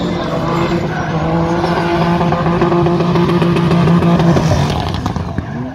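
Drift car engine held at high revs in a steady note, with tyre noise from the slide; the note falls away near the end.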